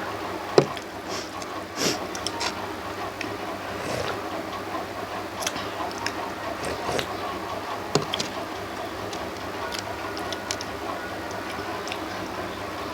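A person eating: chewing and mouth smacks, with scattered small sharp clicks over a steady background noise.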